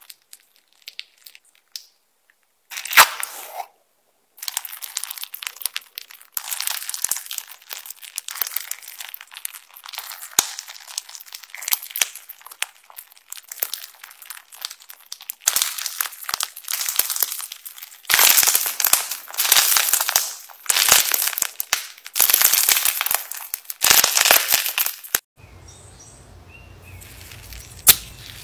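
Sequin- and glitter-packed slime squeezed and stretched by hand, giving dense crackling and crinkling with sticky pops. Near the end the crackling stops and gives way to a faint low hum with a few clicks.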